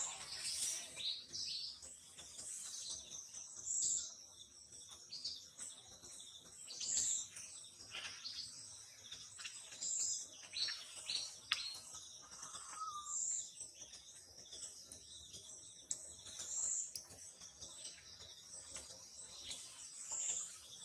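Birds chirping, with one short, high call repeating every few seconds.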